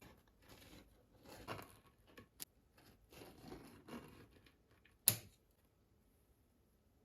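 Rustling and handling sounds that come and go, with a sharp click about two and a half seconds in and a louder knock just after five seconds.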